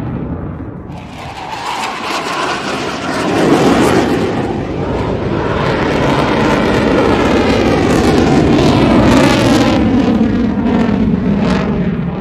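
Eurofighter Typhoon fighter jet flying past, the roar of its twin EJ200 turbofan engines. The roar swells about a second in, becomes loud around three and a half seconds in, holds with a sweeping, phasing rush, and eases slightly near the end.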